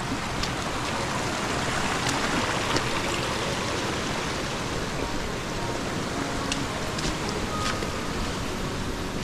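Small mountain stream rushing and splashing over rocks: a steady rush of water, a little stronger in the first few seconds, with a few faint clicks.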